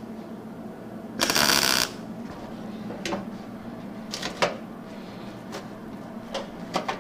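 MIG welder laying a short tack weld: a crackling sizzle lasting under a second, about a second in. It is followed by scattered light clicks and taps of gloved hands and metal on the sheet-steel dash panel.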